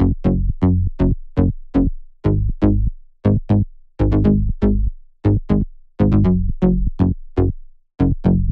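Sylenth1 synth bass playing a deep house bassline on its own: short plucked bass notes, about three a second, each starting sharply and dying away quickly, moving between a few pitches.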